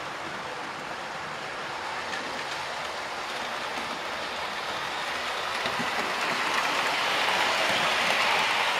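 Model railway train, an unrebuilt Merchant Navy class locomotive hauling coaches, running along the track; its rolling noise grows louder from about halfway through as it approaches and passes close, loudest near the end.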